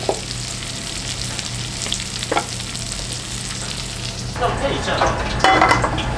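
Food sizzling in hot oil in a frying pan, a steady hiss over a low hum. From about four and a half seconds in, the pan's contents are stirred and it gets louder and more clattery.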